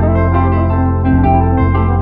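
Calm background music with held chords.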